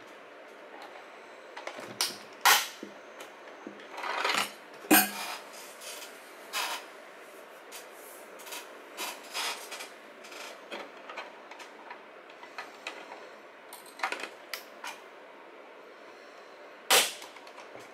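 Plastic clips and panels of a WD Black D10 external hard drive enclosure clicking, snapping and scraping as the case is pried apart. The snaps come irregularly, the loudest about five seconds in and near the end.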